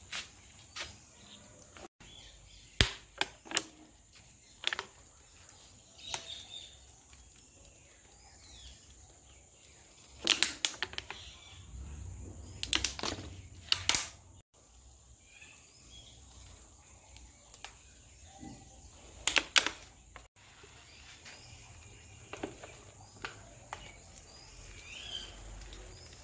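Outdoor background with scattered sharp clicks and taps, bunched in a few clusters, and occasional faint bird chirps.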